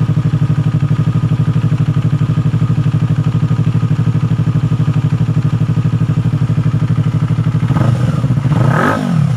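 Yamaha R3's parallel-twin engine idling through an Akrapovic M1 slip-on muffler with a steady, even low beat, not very loud and bassy. About eight seconds in a quick throttle blip raises the revs and lets them fall back.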